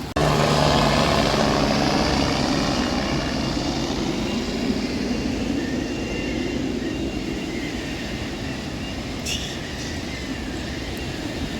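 Sea surf: waves breaking and washing on the shore, a steady rushing noise that comes in abruptly just after the start and slowly eases.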